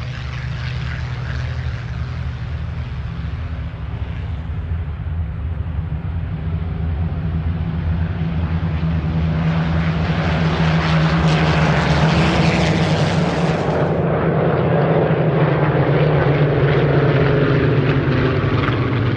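Supermarine Spitfires' V12 piston engines droning in a low pass, growing steadily louder toward the middle. About two-thirds of the way through, the sound changes abruptly to another steady propeller-engine drone.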